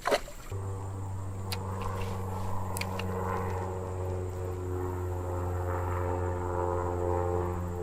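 Background music: a sustained low drone of held tones, with a few light ticks over it, coming in about half a second in after a brief swoosh.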